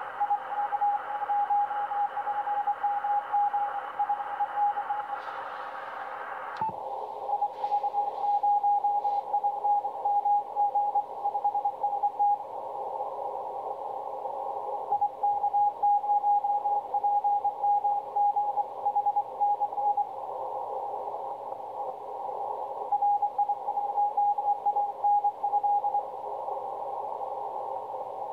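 Morse code (CW) heard on a Yaesu HF transceiver on the 20 m band: a steady tone of about 800 Hz keyed in runs of dots and dashes over band hiss, with short pauses between groups. About six and a half seconds in there is a click, and the hiss behind the tone suddenly narrows and thins.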